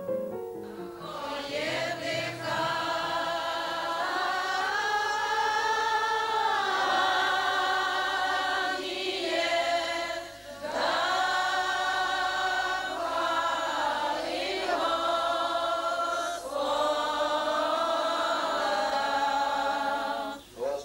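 A crowd of worshippers, mostly women, singing a church hymn together in long held phrases with short pauses between them. The singing starts about a second in.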